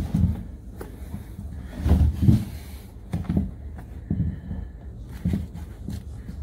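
High-top sneakers being handled and bumped on a countertop while their laces are pulled through: a series of dull knocks and rustles, the loudest about two seconds in.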